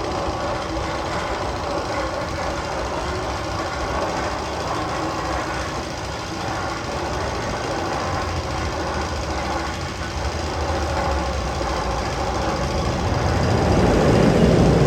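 One of the Magnum XL 200 tunnel sound effects: a steady mechanical rumble with an engine-like hum and knocking. It swells louder near the end.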